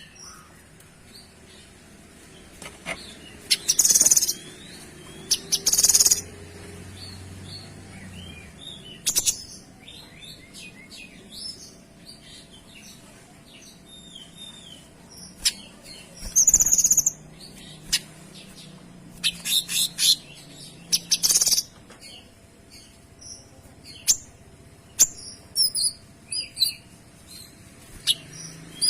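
Kinoy songbird singing: a running chatter of short chirps broken every few seconds by loud, very high, harsh bursts of song, the sharp 'tembakan' prized in training recordings.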